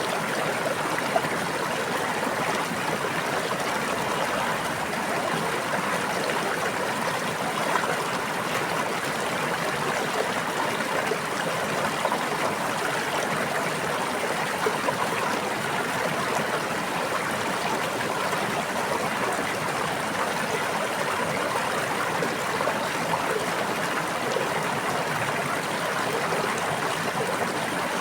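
Steady flowing water of a stream, babbling and trickling over stones, with small splashes here and there.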